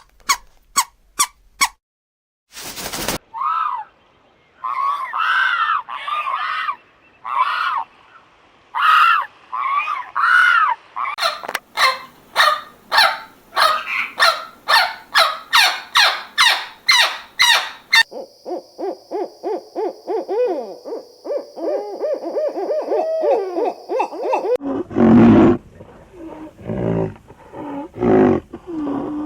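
A string of different animal calls cut one after another: short clicks, then repeated rising-and-falling calls, rapid trains of short calls, a lower warbling passage, and low heavy calls near the end.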